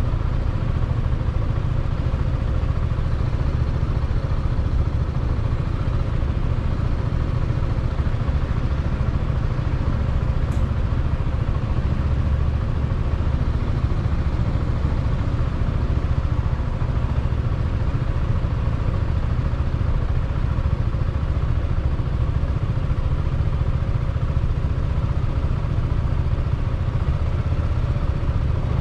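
Small-displacement motorcycle engine idling steadily, with an even, unchanging level.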